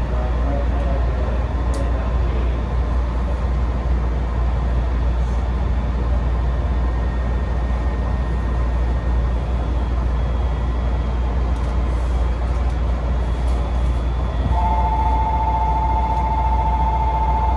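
Steady rumble of a JR Kansai Line train on the move, heard from inside the carriage. About three-quarters of the way through, a steady two-note tone starts and holds.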